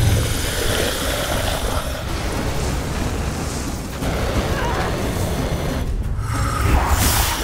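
Film sound effects of a hovering spacecraft lander's thrusters: a dense, steady roar with heavy low rumble. It drops away briefly just before six seconds, then surges back loudly and harshly near the end.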